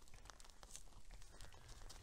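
Faint, scattered crunches and rustles from red deer feeding at a hay pile in the snow.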